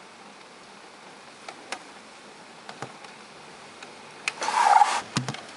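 Steady hiss of falling rain with scattered sharp ticks. About four and a half seconds in there is a brief, louder rushing burst, followed by a couple of knocks.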